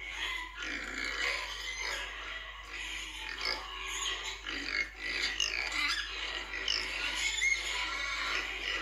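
A group of young domestic pigs grunting and squealing, many calls overlapping in a steady jumble, with a few higher squeals near the end.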